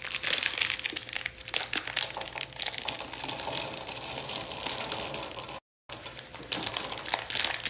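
Plastic bag of chocolate chips crinkling as it is handled, with many small crackles, broken by a brief silent dropout about two-thirds of the way through.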